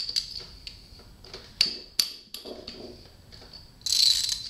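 Ratchet and 6-point socket working the cylinder head nuts of a Suzuki GS550 engine while the head is loosened: a string of sharp, ringing metallic clinks, then a short loud rattle about four seconds in.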